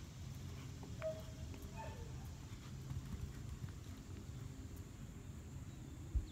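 Soft hoofbeats of a horse moving across arena sand, growing fainter as it goes away, over a steady low rumble. A single low thump near the end.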